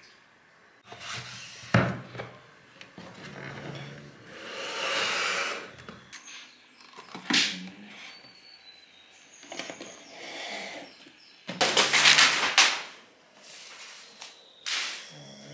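Household handling sounds: objects knocked and shifted on a desk as a laptop is moved, with sharp knocks and stretches of rustling and scraping. The loudest is a rough scraping rustle of about a second and a half, a little past the middle.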